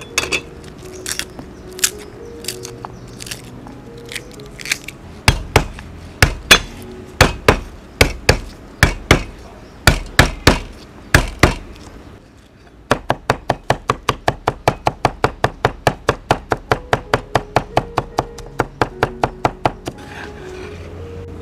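Cleaver chopping garlic on a thick round wooden chopping board. A few scattered knocks, then heavy strikes about two a second, then after a short pause a fast, even run of chops about six a second that stops near the end.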